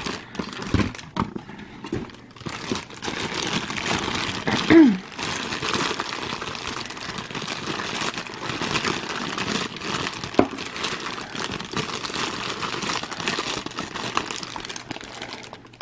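Clear plastic packaging bag crinkling and crackling as it is handled and drawn out of a cardboard box. There is one short falling tone about five seconds in.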